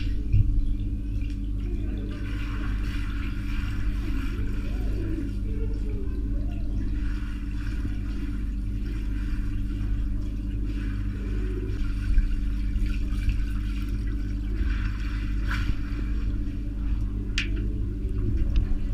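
Pool water heard through an underwater camera: a steady low hum under muffled sloshing and splashing as a dog paddles through the water, with a few sharper splashes or knocks near the end.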